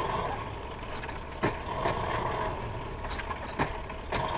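Clay brick extruding machine running, its chain drive and conveyor rollers turning with a steady whine and a few sharp clicks and knocks.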